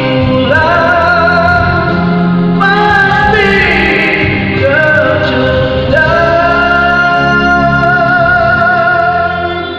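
A man singing a Malay song into a microphone over instrumental backing, drawing out long, wavering notes, the last one held for about three seconds near the end.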